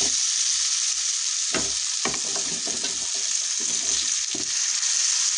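Potatoes frying in hot oil and spices in a nonstick kadhai, sizzling steadily, while a spatula scrapes and knocks against the pan several times as sliced green capsicum is added and stirred in.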